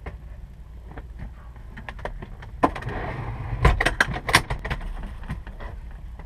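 Clicks and knocks from a pilot handling the controls and seat inside a Cessna 172SP cockpit, with a cluster of sharp clicks about three to four and a half seconds in, over a low steady rumble.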